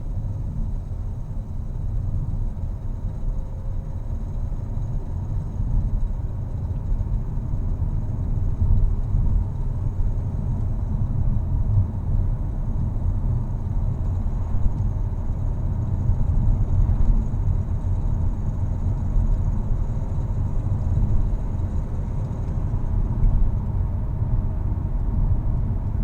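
A 2016 Audi A4 B9 3.0 TDI with a continuous low rattling and clattering rumble, the noise whose source the owner has not been able to find.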